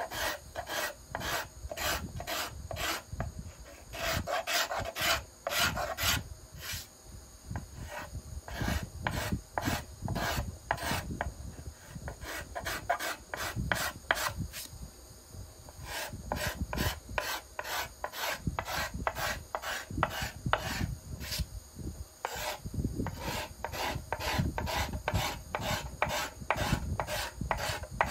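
Steel card scraper scraping the arched flamed-maple plate of a violin, in quick repeated strokes a few per second, each a short dry scrape on the wood: the final smoothing of the arch after planing.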